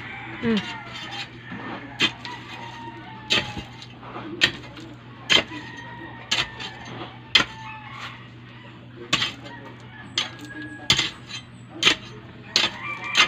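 A metal digging bar striking stony soil around the base of a moringa stump being dug out: sharp strikes at an uneven pace, about one every second or so.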